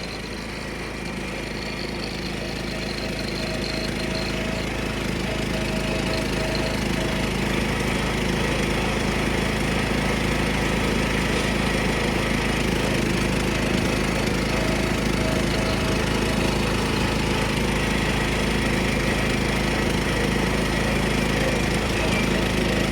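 1976 John Deere 300 riding lawn tractor's single-cylinder Kohler engine running steadily while the tractor drives along, growing louder over the first several seconds and then holding even.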